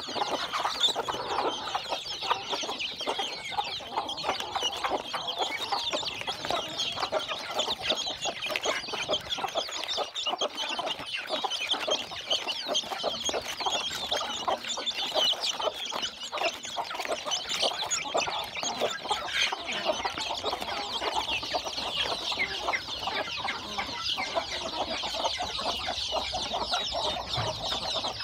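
A flock of young chickens peeping and cheeping without a break, many short, high, overlapping calls.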